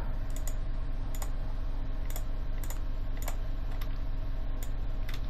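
Computer keyboard keys clicking in scattered taps, about one or two a second at an uneven pace, over a steady low hum.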